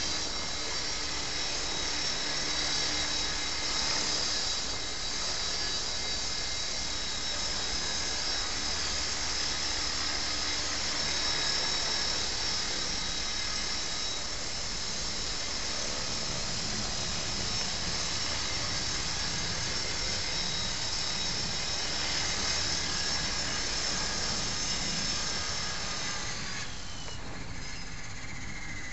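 Electric 450-size RC helicopter (a T-Rex 450 Pro clone) in flight: a steady high-pitched whine from its motor and main rotor. About two seconds before the end the whine drops in pitch as the rotor spools down after it lands.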